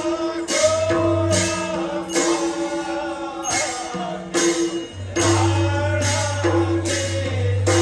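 Devotional folk music for a masked dance: singing over held, sustained notes, with crisp percussion strikes keeping a steady beat about every three quarters of a second.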